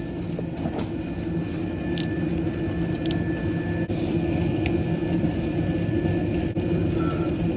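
2010 York gas furnace running: a steady motor hum, with a few short sharp clicks about two, three and four and a half seconds in.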